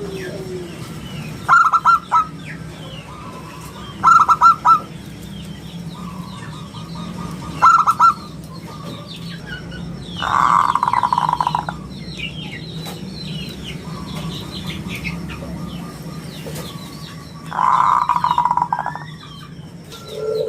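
Zebra dove (perkutut) calling in short phrases of quick cooing notes every few seconds, with two longer, denser bursts about halfway and near the end. Other small birds chirp faintly in the background.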